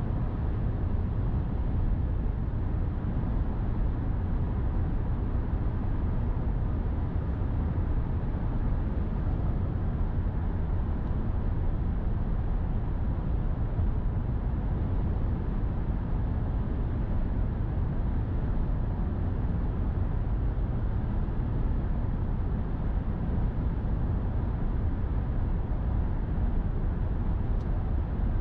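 Steady road noise of a car driving at highway speed: a deep, even rumble of tyres on the interstate pavement.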